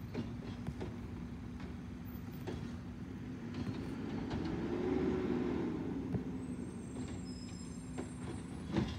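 Garbage truck engine running steadily, swelling louder and higher for a couple of seconds in the middle before settling back, with a few light clicks.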